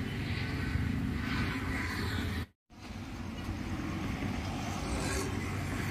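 Outdoor street ambience: a steady low rumble of road traffic, broken by a brief dropout about two and a half seconds in.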